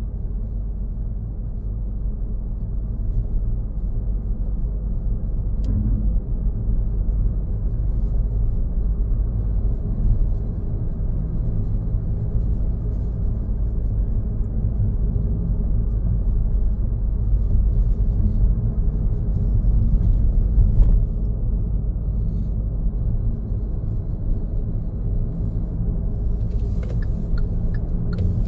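Car driving on a road: a steady low rumble of engine and tyres.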